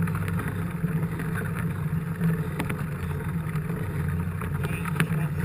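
Steady low rumble of a mountain bike rolling along, with wind on the action camera's microphone.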